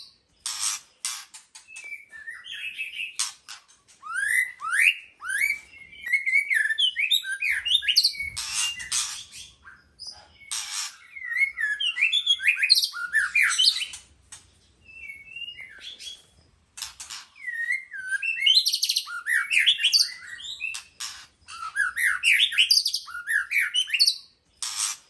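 White-rumped shama singing: a long run of varied whistled phrases with rising and falling notes, broken now and then by short harsh notes and brief pauses.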